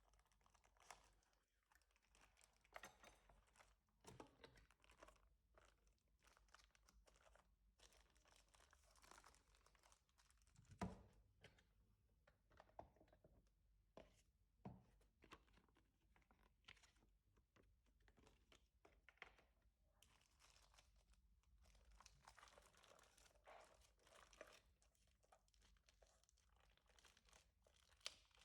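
Faint rustling and crinkling of keyboard packaging being handled and unwrapped, with scattered light clicks and one soft knock about eleven seconds in.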